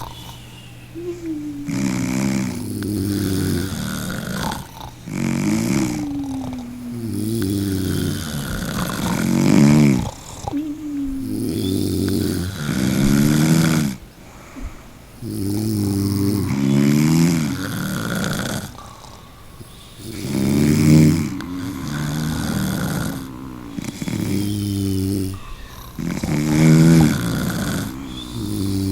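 A person snoring loudly, a rasping snore about every three seconds, some rising and some falling in pitch, with short quiet gaps between breaths.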